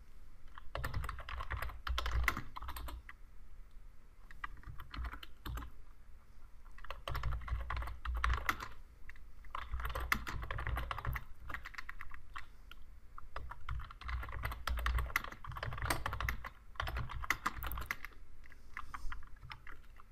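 Typing on a computer keyboard: several bursts of quick keystrokes with short pauses between them.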